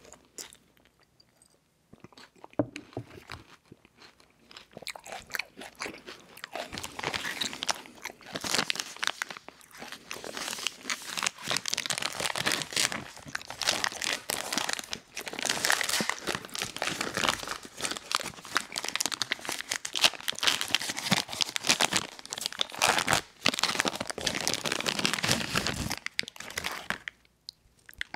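Plastic wrapper of a Lucky Charms Treats cereal bar crinkling and tearing as it is opened and handled. After a few scattered rustles, dense crinkling starts several seconds in and stops shortly before the end.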